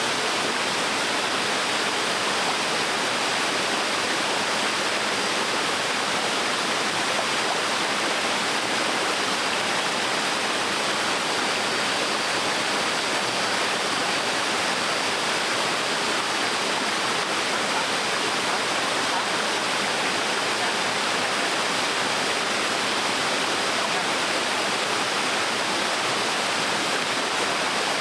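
Gentle waterfall on a stream: water falling and splashing steadily, an even rush without breaks or changes.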